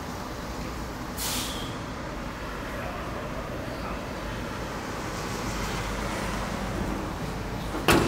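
Ford Kuga's engine idling steadily, with a short hiss about a second in and a sharp thud near the end.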